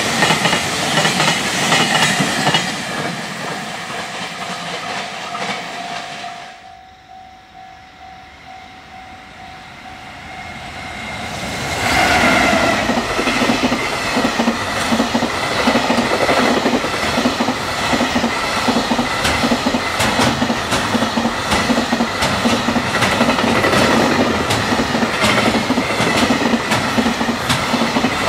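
Container freight train carrying 31-foot containers rushing past close by, its wheels clattering over rail joints, with a level-crossing warning bell ringing. The sound fades for a few seconds about a quarter of the way in, then is loud again as another pass of the train begins.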